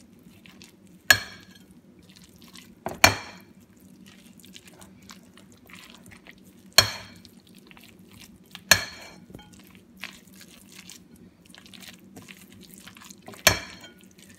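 A spatula stirring shredded chicken and mayonnaise dressing in a glass mixing bowl: five sharp knocks of the spatula against the glass, spaced a few seconds apart, with quieter scraping and stirring between them.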